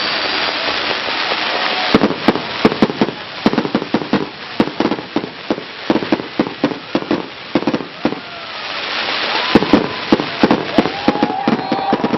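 Fireworks display: dense crackling, then rapid volleys of sharp bangs from about two seconds in, with crackling and short rising whistles building again near the end.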